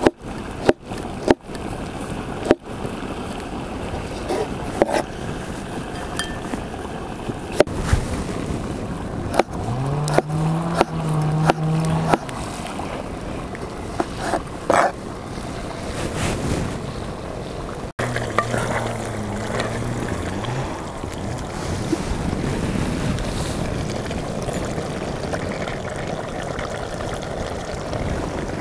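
A cleaver chopping tomatoes on a wooden cutting board: sharp knocks in quick succession at first, then a few scattered chops until about halfway, over steady wind noise. A low humming tone comes in briefly twice.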